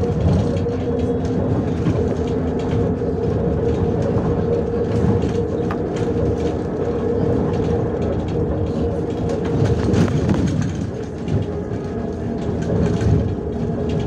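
Inside a MAZ 105 city bus under way: steady engine and driveline drone with a constant whine, and the body and fittings rattling over the road.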